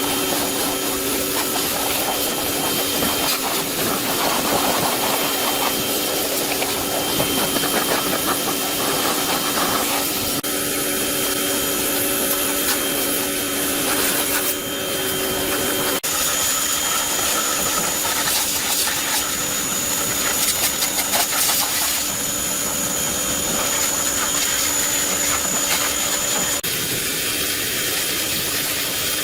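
Steady machine noise of a power tool or motor running, changing abruptly about 10, 16 and 27 seconds in.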